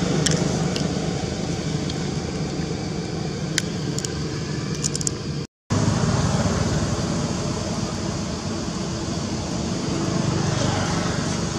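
Steady low background rumble with a few faint clicks in the first half; the sound cuts out completely for a moment about halfway through.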